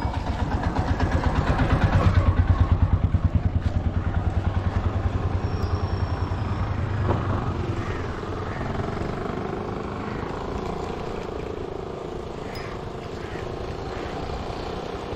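A small road vehicle's engine passes close by, loudest about two to three seconds in and fading away by about eight seconds, leaving a fainter steady background.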